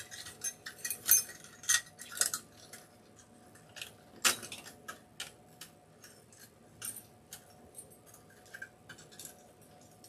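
Chicken wire and a metal wreath frame clicking and scraping as hands bend and tuck the wire: scattered irregular clicks, the loudest about four seconds in.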